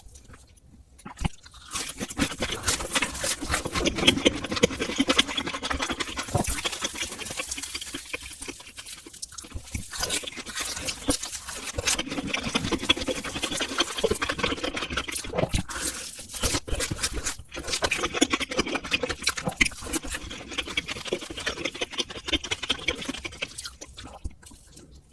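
Close-miked slurping and chewing of spicy stir-fried instant noodles: wet smacking and sucking in three long bouts, breaking briefly about a third and two-thirds of the way through.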